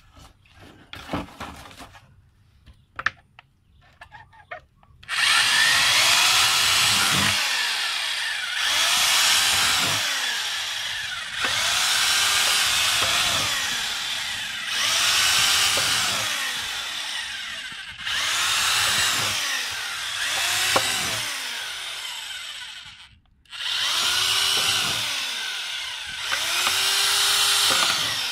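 Corded electric drill boring into the wall of a plastic jerrycan, running in repeated loud runs with the motor pitch rising and falling in each as the bit loads, with short breaks and one brief stop a little past three quarters through. Before the drilling starts there are a few seconds of light knocks and handling.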